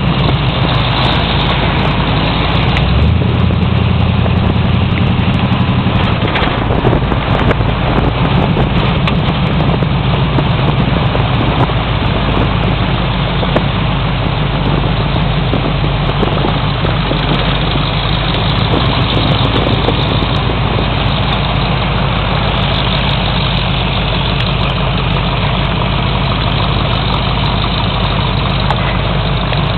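Car engine running steadily close to the microphone as the car drives at low speed, with a haze of road and air noise over it; the engine note shifts about three seconds in.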